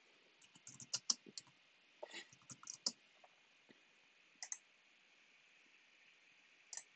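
Faint computer keyboard typing in two short runs of keystrokes, then a few separate clicks of a mouse or trackpad, about halfway through and near the end.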